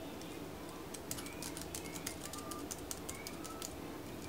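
Keys of a foldable Bluetooth keyboard clicking in quick irregular runs as they are pressed. A few short faint high tones sound among the clicks.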